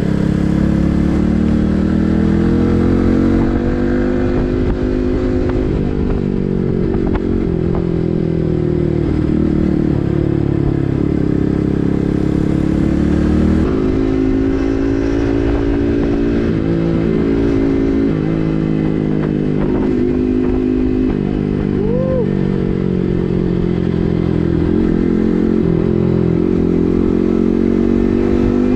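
Yamaha MT15's 155 cc single-cylinder engine running through an SC Project full-system exhaust while riding, its pitch rising and falling with throttle and gear changes.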